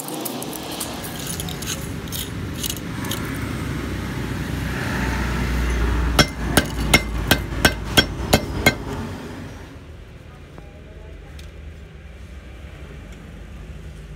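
Old copper windings and slot insulation being pulled and scraped out of a three-phase induction motor's stator, with a run of about eight sharp metallic taps, about three a second, a little past the middle. It then drops to a quieter stretch with a few faint ticks.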